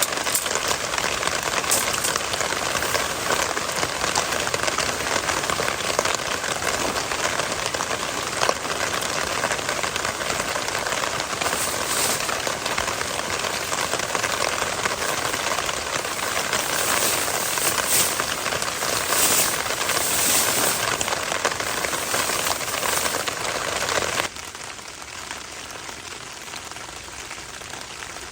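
Steady rain falling, an even hiss of drops that turns suddenly quieter near the end.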